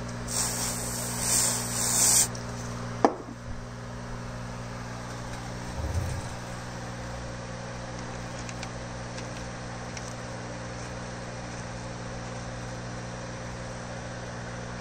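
Aerosol can spraying through a straw nozzle onto the threads of a transmission sensor, a hiss in a few short bursts for about two seconds. A sharp click follows about a second later, then a low thump, over a steady background hum.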